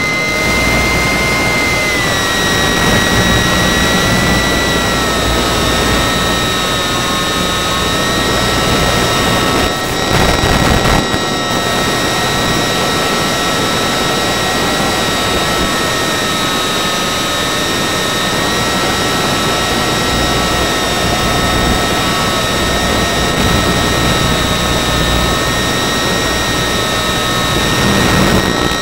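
Small electric motor and propeller of an ultra-micro Icon A5 RC plane, whining steadily in flight over a rush of wind noise, heard through the onboard camera's microphone. The whine dips slightly in pitch about two seconds in, as the throttle eases.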